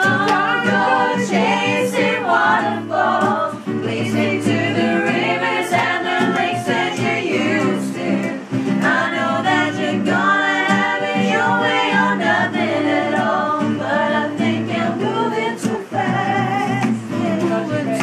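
Voices singing a song, led by a woman, with an acoustic guitar strummed along.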